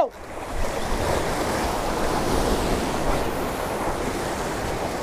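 Sea surf washing against and over the jetty's boulders, a steady rushing noise.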